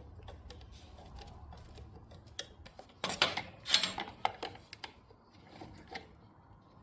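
Scattered light clicks and metallic clatter of chainsaw parts and tools being handled, busiest about three to four and a half seconds in.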